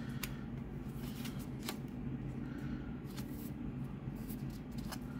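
Pokémon trading cards handled by hand: scattered light clicks and rustles of card stock, over a steady low hum.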